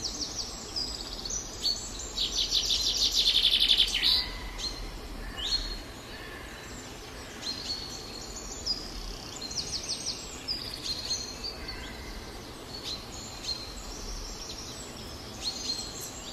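Small birds chirping, with a fast run of rapidly repeated chirps a few seconds in and scattered short calls after it.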